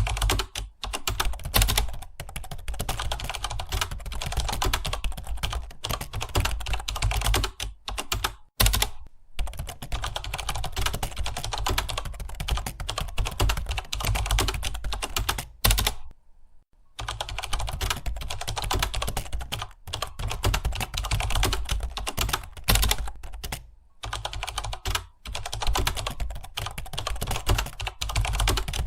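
Computer keyboard being typed on continuously at a fast pace, a dense run of key clicks broken by a few short pauses, the longest about halfway through.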